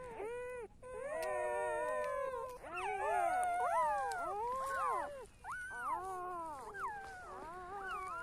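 Newborn puppies crying, several at once: short, high, whining calls that rise and fall and overlap, with a brief pause near the start.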